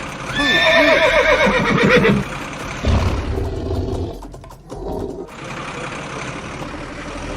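A horse whinnying, one long wavering call that falls in pitch over about two seconds. A low thump and rumble follow about three seconds in, then a steady, quieter noise.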